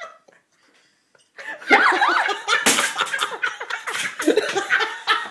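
A person bursts into loud laughter after a second or so of near quiet, with a few sharp clattering knocks mixed in.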